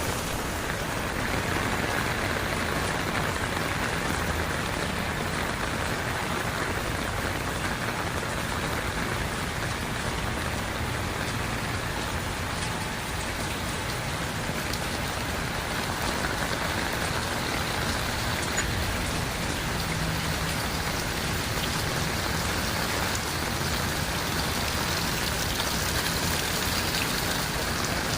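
Heavy rain falling steadily, drops splashing on surfaces.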